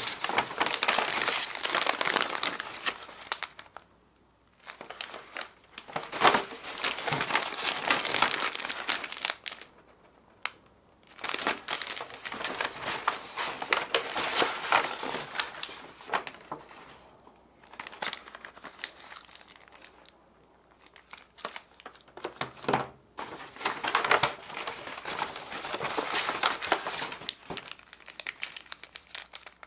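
Paper gift bag rustling and plastic snack packets crinkling as they are lifted out by hand, in several bursts of a few seconds each with short pauses between.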